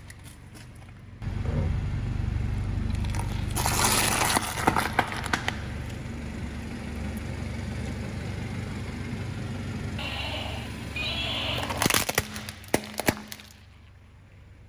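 Car tyre rolling over quail eggs on a ceramic plate, the shells and plate cracking and crunching, heaviest about four to five seconds in and again about twelve seconds in, over the low rumble of the car's engine.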